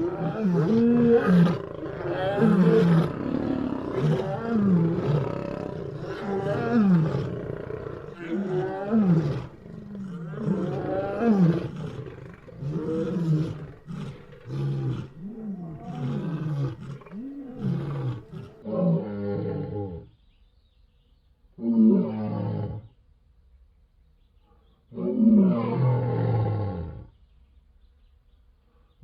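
Lion roaring: a long run of deep grunting calls, each falling in pitch, coming about once a second and running into one another, then after about twenty seconds only a few separate calls with pauses between.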